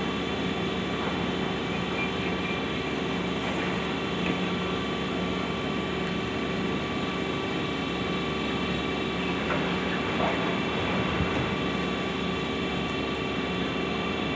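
Demolition excavator's diesel engine and hydraulics running steadily under load as the grapple arm swings, with a few faint knocks from debris.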